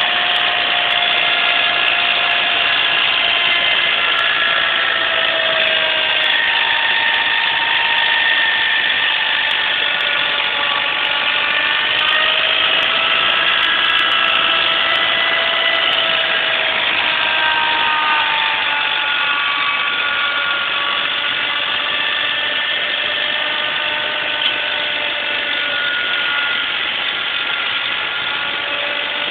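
John Deere tractor's engine and front-mounted inverted snowblower running steadily while clearing snow, several tones in the noise drifting slowly up and down in pitch.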